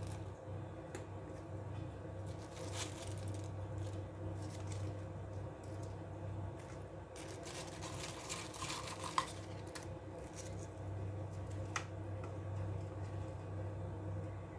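Scattered light clinks, taps and rustles of kitchen dishes and utensils being handled, with a sharper clink about nine seconds in and another near twelve seconds, over a steady low hum.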